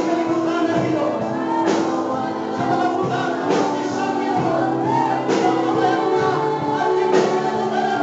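Congregation and worship band singing a slow Christian worship song: held voices over instruments, with a light percussive accent about every two seconds.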